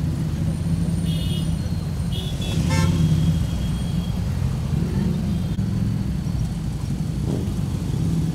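Several Harley-Davidson V-twin motorcycles rumbling along at low speed, with a short vehicle horn blast about three seconds in.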